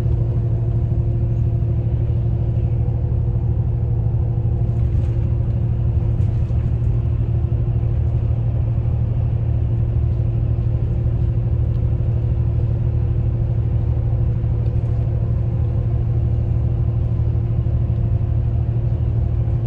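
Steady, loud low rumble of a moving vehicle, with a constant hum riding above it.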